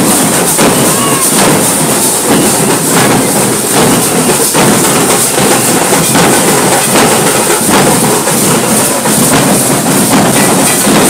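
A troupe of jaydhak, large double-headed drums beaten with sticks, playing a dense, unbroken beat together with clashing hand cymbals. The cymbals ring bright over the drums, and it is loud throughout.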